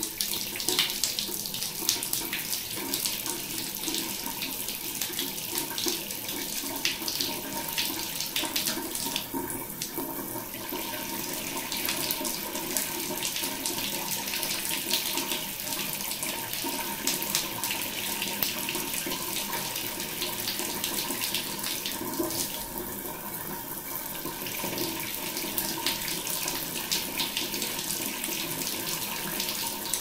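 Shower water running steadily from an overhead head, splashing onto an outstretched hand and the tiled floor by the drain. The water is still running cold, which the owner puts down to a faulty mixing cartridge.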